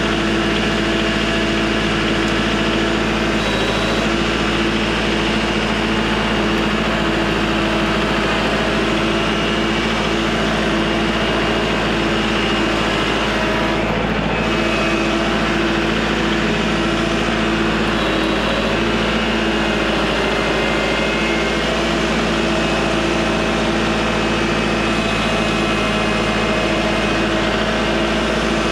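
A steady mechanical hum from an engine or motor running at an even speed, with several held tones at different pitches and no change in loudness.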